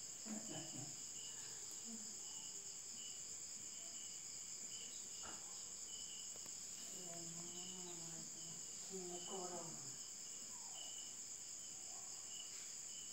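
Steady chorus of crickets: a continuous high trill, with a lower chirp repeating about three times every two seconds. Faint voices come in briefly in the middle.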